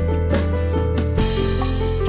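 Background music with a drum beat, held bass notes and a melody.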